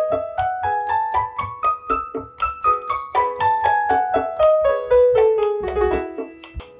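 Vangoa VGD611 61-key digital piano with its piano voice. A stepwise run of notes, about four a second, climbs for roughly three seconds and then descends, over the keyboard's own auto-accompaniment rhythm with a steady low pulse beneath.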